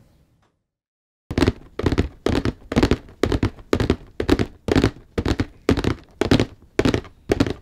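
After about a second of silence, a loud run of short, heavy thuds, about two a second, each dying away quickly.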